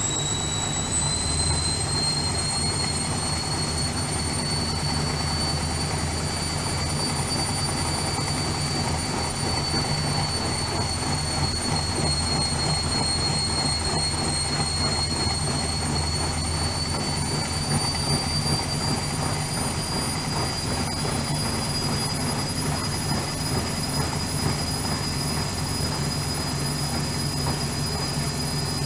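Bauknecht WAK 5750 G washing machine spinning at high speed, its brushed motor running on freshly fitted carbon brushes: a steady drum rumble under a high whine. The whine climbs in the first second, holds, then rises slightly again about halfway through.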